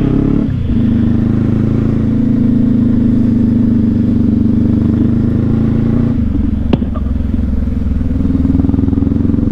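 Honda CB500X's parallel-twin engine running under way, a steady engine note that dips briefly about half a second in and shifts pitch again around six seconds in. A single sharp click comes a little before seven seconds in.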